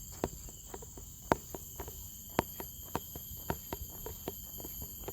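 Steady high-pitched insect drone, with a run of irregular sharp clicks and taps, about two to four a second.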